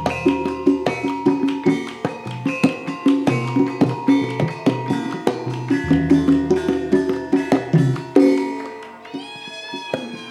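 Javanese gamelan music: struck bronze keyed instruments and drums playing a steady, even rhythm. A little after eight seconds a loud stroke gives way to a long held note that sinks slightly.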